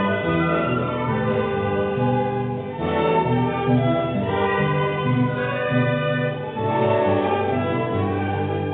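Accordion and violin playing a slow melody over held chords.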